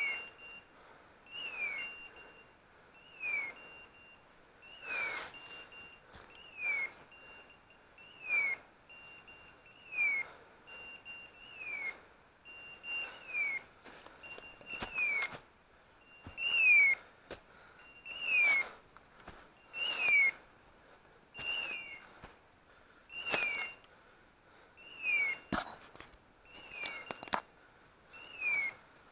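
Electronic beeper collar on a hunting English setter, sounding about every 1.7 seconds: each signal is a short steady high tone that drops in a quick falling glide. Dry leaves crackle underfoot between the signals.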